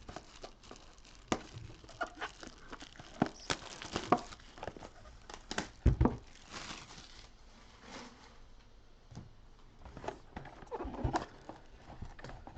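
Packaging being handled while a new box of football trading-card packs is opened: crinkling wrapper and cardboard with scattered light taps, and a louder thump about six seconds in.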